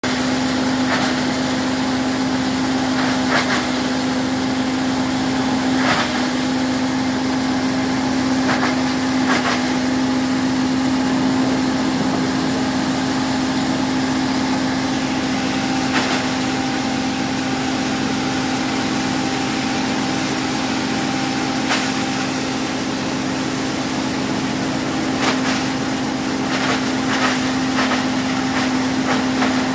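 Old communist-era maize grinding mill running steadily, a constant hum with a grinding hiss over it. Short sharp knocks come now and then, several of them near the end.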